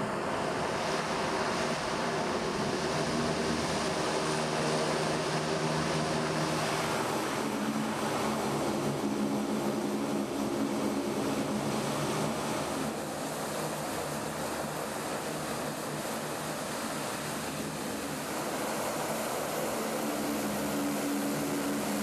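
Landing Craft Air Cushion (LCAC) hovercraft running at speed over the sea: its gas turbines, lift fans and ducted propellers make a steady drone with several low hums, over a hiss of rushing air and spray. The sound eases slightly about halfway through.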